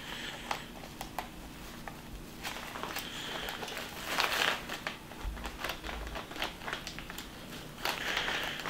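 Nylon fabric rustling and crinkling with scattered small clicks, as a fabric cover is worked by hand over a plastic frame end and its zipper, with a few louder spells of rustling.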